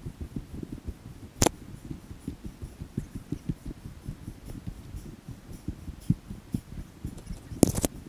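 Footsteps on a loose, rocky dirt trail: a quick, irregular run of low crunches and thuds as a hiker climbs. There is a sharp click about a second and a half in, and a louder, brief noise near the end.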